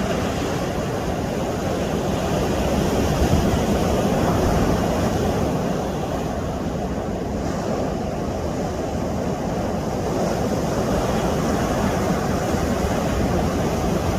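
Sea surf washing steadily against the rocks, swelling a little about three to five seconds in.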